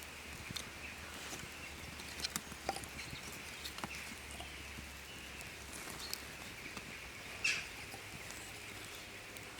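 Wood campfire crackling: scattered sharp pops and snaps, a cluster a couple of seconds in and the loudest one about three quarters of the way through, over a steady high hiss.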